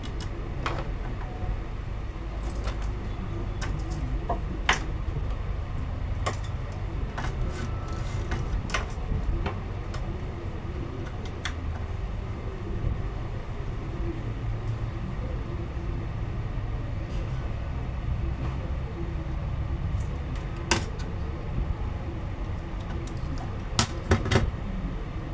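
Scattered sharp clicks and taps as multimeter probes and a laptop motherboard are handled, over a steady low rumble; a cluster of louder knocks near the end as the board is turned over on a wooden bench.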